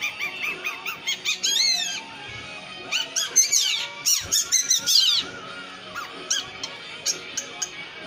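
Caged long-tailed shrike (cendet) singing a rapid, varied song of sharp chirps and sweeping whistled notes. It is busiest in the first two seconds and again from about three to five seconds in, then thins to scattered chirps.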